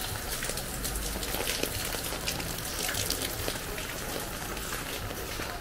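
Steady rain falling, with many close raindrops ticking sharply on hard surfaces.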